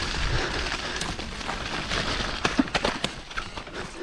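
Enduro mountain bike riding fast down a dirt forest singletrack: continuous rushing noise from wind and tyres on dirt, with many sharp clicks and rattles from the bike over bumps. A low wind rumble on the microphone is strongest at the start and eases after about half a second.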